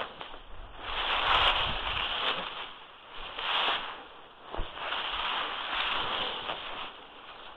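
Dry leaves and grass rustling and crackling in irregular swells as hands sweep them off a perforated metal fish trap, with jacket sleeves swishing.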